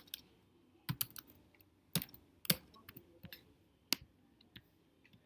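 About half a dozen sharp, irregular clicks and taps of small plastic parts being handled, as an LED is fitted into a solderless breadboard.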